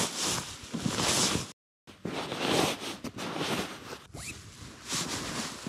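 Nylon shell of a puffy sleeping bag rustling and swishing in repeated strokes as it is bunched up and stuffed for packing. The sound breaks off briefly about a second and a half in, then the swishing goes on.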